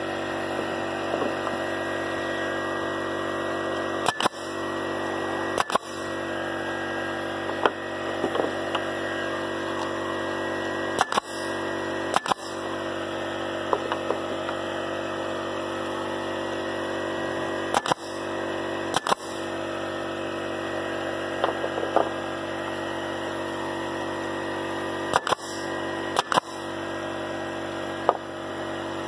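Pneumatic nail gun firing sharp shots into wooden slats, mostly in pairs about a second apart, every six seconds or so. A steady mechanical drone runs underneath.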